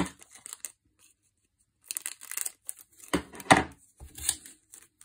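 Star Wars Unlimited booster pack wrapper crinkling and crackling in the hands as it is opened, in short bursts. There is a gap of about a second near the start, and the loudest crackle comes a little past halfway.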